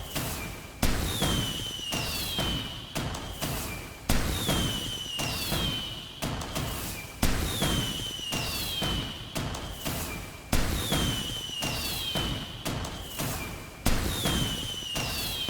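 Fireworks going off: a sharp bang about every three seconds, each followed by a whistle that falls in pitch and crackling, the same pattern repeating over and over.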